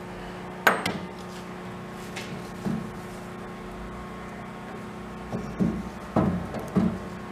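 A sharp click under a second in, then a few soft knocks and handling sounds later on, over a steady electrical hum.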